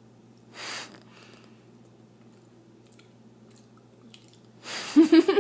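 A person chewing a spoonful of queso dip, with faint mouth clicks and a short breathy noise about half a second in. A voice breaks in loudly near the end.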